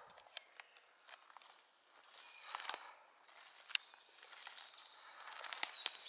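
Footsteps through dry leaf litter and twigs, with a few sharp snaps, while small songbirds sing high, thin phrases and trills.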